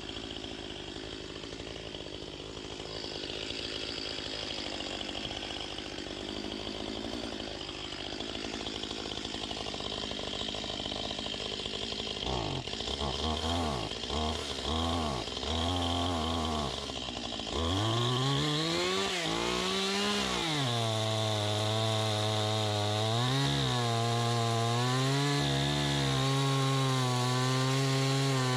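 Chainsaw running: a steady low running sound at first, then revved in short blips about twelve seconds in, then held at high revs with the pitch wavering as it cuts into a tree.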